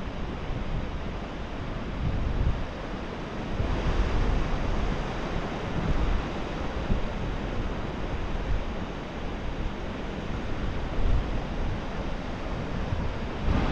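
Wind gusting on the microphone, with a rumble that swells and eases, over the steady wash of ocean surf.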